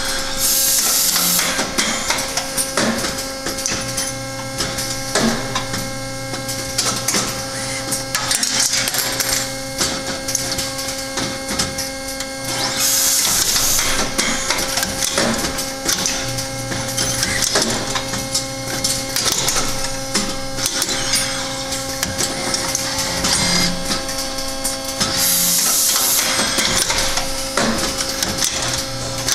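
An automated pipe-end correction and inspection cell running through its cycle. A Mitsubishi Electric robot arm and other servo actuators hum steadily, with the hum switching on and off. Pneumatic clamps and valves click over this, and bursts of exhausting air hiss about a second in, near the middle and near the end.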